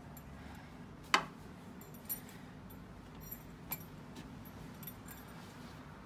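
A sharp click about a second in, then a few fainter clicks and ticks, over a faint steady background.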